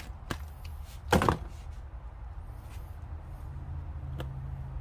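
A tap socket set and its carrying case being handled: a light click, then a short knock about a second in, and a few faint ticks later, over a steady low rumble.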